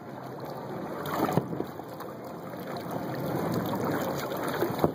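Water washing and lapping around a kayak, a steady noisy wash, with a couple of sharp bangs, one about a second and a half in and one near the end.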